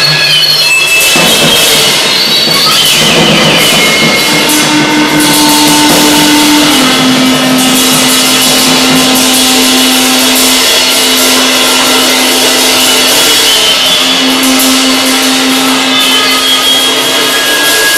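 Live experimental noise performance: a drum kit played hard under a dense, loud wash of amplified, echo-processed noise. A held low drone comes in about four seconds in and steps down slightly in pitch a few seconds later.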